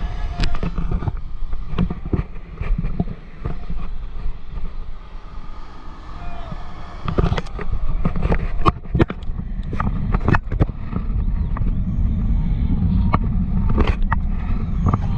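Wind rumbling on the microphone, with many sharp knocks and thumps scattered through it. The rumble grows louder over the last few seconds.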